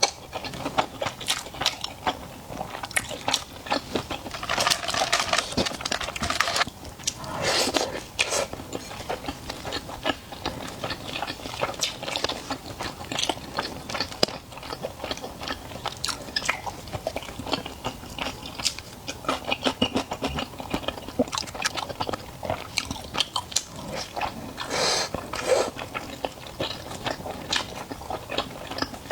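Close-miked chewing and biting of food, with many short wet mouth clicks and crunches. A few longer noisy stretches of a second or two come several seconds in and again near the end.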